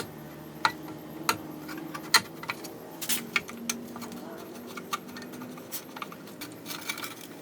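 Hand tools and fasteners clinking on metal while a cover plate is worked loose under the car: a scattered series of sharp metallic clicks and taps over a steady low hum.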